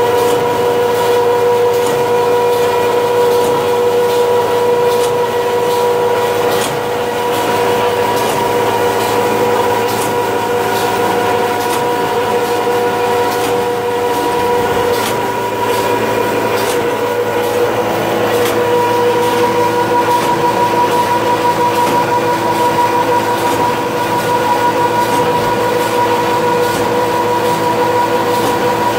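Charcoal briquette extruding machine running: a loud, steady mechanical drone with a held whine whose pitch shifts a little about halfway through, and scattered clicks.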